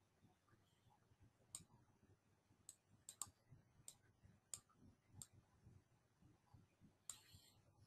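Faint computer mouse clicks, about seven scattered single clicks, some in quick pairs, then a longer rasping click near the end, over near silence.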